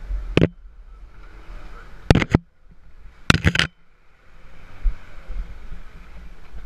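Off-road 4x4 driving on a rough forest dirt track: a low rumble of engine and tyres with sharp, loud knocks, one about half a second in, two close together around two seconds in and a short cluster a second later.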